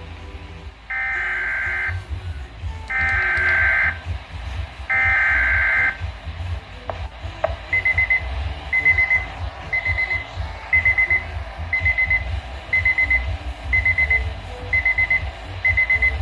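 Three one-second bursts of a weather-radio SAME digital alert header, a harsh buzzing warble. About two seconds later a weather radio receiver's alarm starts beeping once a second, each high beep a quick run of chirps, as the receiver signals a severe thunderstorm warning.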